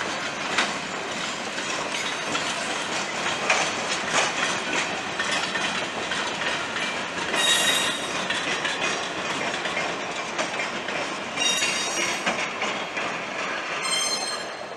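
Passenger coaches and cabooses rolling past: steady wheel-on-rail noise with many sharp clicks, and brief high-pitched wheel squeals about halfway through, again a few seconds later and once more near the end. The sound fades as the last caboose goes by.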